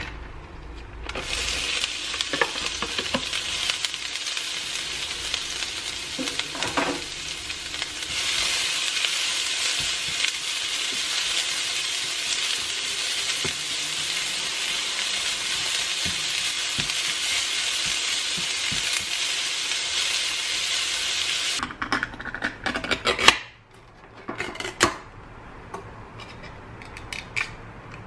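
Julienned carrots sizzling in oil in a nonstick frying pan as they are stir-fried with a plastic slotted spatula. The sizzle starts about a second in, grows louder several seconds later, and cuts off suddenly near the end, giving way to a few sharp clicks and knocks.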